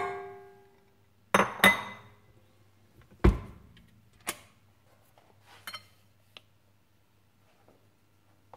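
Metal clinks and knocks around a stainless steel stand-mixer bowl: a ringing clang right at the start, two sharp knocks about a second and a half in, and a heavier thud about three seconds in. Lighter scattered clicks follow and die away.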